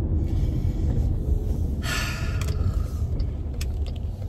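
Steady low rumble of a car in motion, heard inside the cabin, with a short breath noise about two seconds in.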